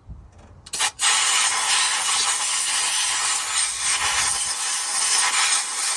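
Compressed-air blowgun blowing a steady, loud hiss into the carburetor's idle circuit through the idle mixture screw port, to clear gum and bad-fuel deposits from the idle passages. The hiss starts about a second in after a couple of small clicks and cuts off sharply just after the end.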